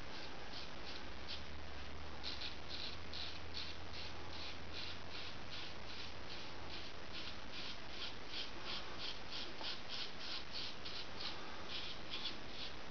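Gold Dollar 66 straight razor scraping through lathered beard stubble on the neck in short, quick strokes, a steady rhythm of about three scratches a second.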